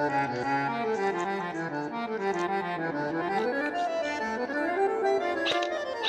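Instrumental music whose melody runs in quick notes, falling and then climbing, with a few sharp percussive clicks near the end.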